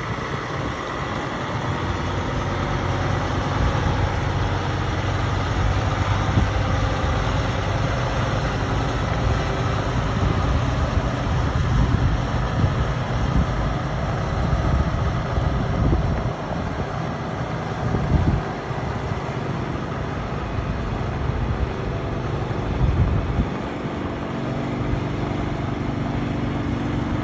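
Heavy-haul semi tractor's diesel engine running steadily at low speed as it tows a long multi-axle lowboy trailer slowly past over gravel.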